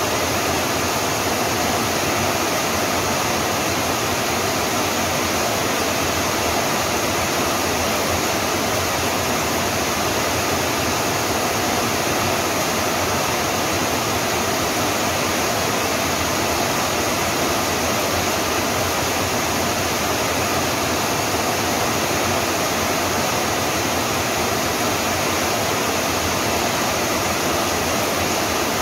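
Steady heavy rain: a dense, even hiss that holds the same level throughout.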